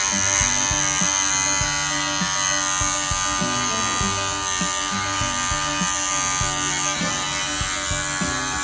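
Electric pet grooming clippers running steadily with a constant motor hum. The owner judges the blades worn and due for replacement.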